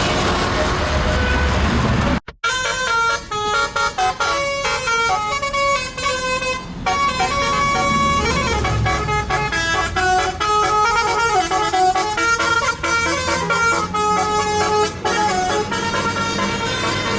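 Tour bus telolet horn, a multi-trumpet musical horn, playing a tune of short notes that step up and down in pitch over the low running of the bus engine. The sound drops out briefly about two seconds in, before the tune starts.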